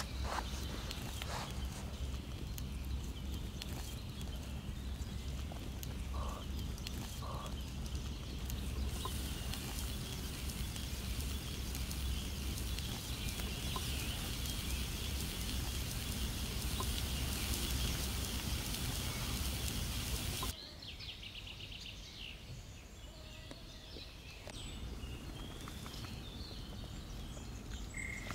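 Quail pieces sizzling and searing on a hot surface over a wood fire, the sizzle growing stronger about a third of the way in. Then, after an abrupt cut, quieter forest ambience with small birds chirping.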